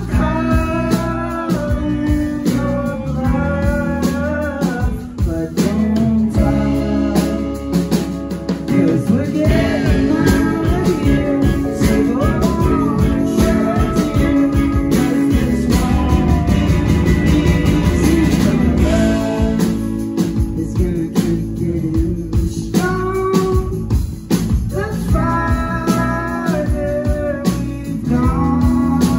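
Live rock band playing: a sung lead vocal over electric guitar, electric bass, keyboards and drums, with the singing heard in phrases near the start and again near the end.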